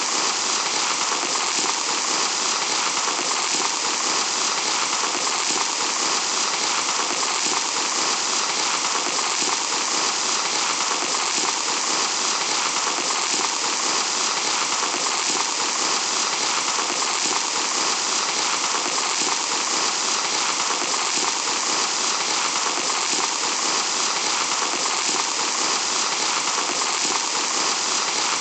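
Sand trickling in a steady, even hiss that does not change.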